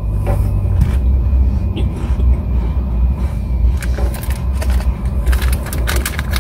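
Plastic wrapper of a packet of digestive biscuits crinkling and rustling as it is handled, starting about four seconds in and getting denser toward the end, over a steady low rumble in the car cabin.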